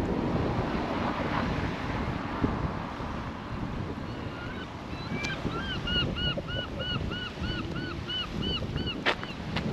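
Wind buffeting the microphone in a steady low rumble. Through the second half a bird gives a run of short repeated calls, two or three a second, and a sharp click sounds near the end.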